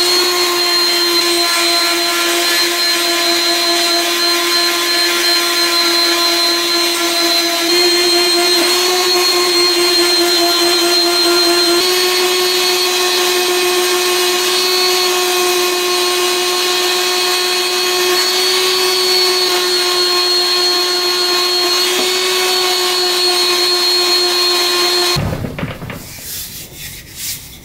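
Random orbital sander running with a steady hum, sanding the dark stain off a turned wooden table leg. It cuts off about two seconds before the end, and a few light handling sounds follow.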